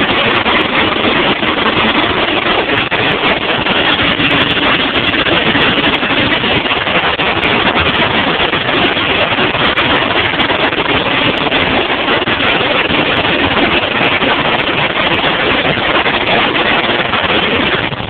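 Competition car audio system with Incriminator Audio subwoofers playing bass at extreme volume. The microphone is overloaded, so it is heard as a steady, distorted roar with no clear notes.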